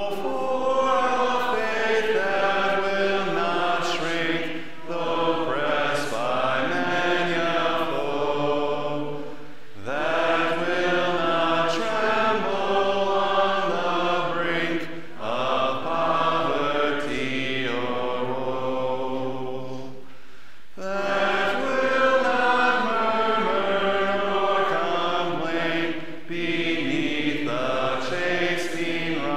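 Congregation singing a hymn a cappella, with no organ, in phrases of about five seconds and short breaths between them.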